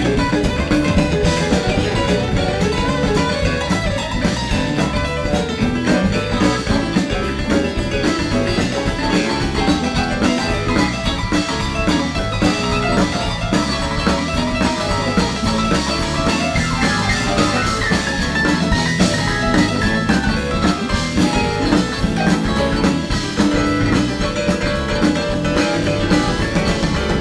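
Live rock band playing an instrumental jam: electric guitars over a steady drum kit, with keyboards.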